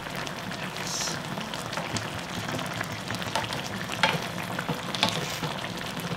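Spicy mackerel-and-radish braise bubbling and sizzling in a frying pan, stirred with a wooden spatula that knocks against the pan twice, about four and five seconds in.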